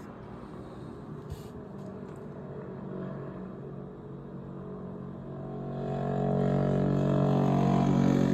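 A motor vehicle's engine drawing near, running steadily and growing louder over the last few seconds as it passes close by.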